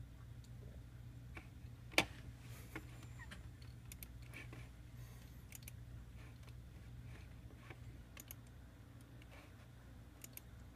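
Faint scattered clicks of a computer mouse and keyboard, with one sharper click about two seconds in, over a low steady hum.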